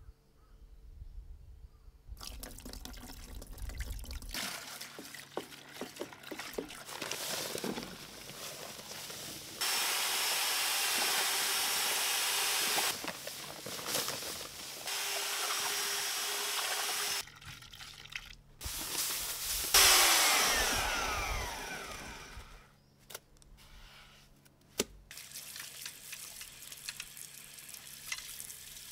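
Cement mortar being mixed in a plastic bucket. Water and cement powder are poured in, an electric paddle mixer runs steadily in two spells of a few seconds each, and water runs from a tap near the end.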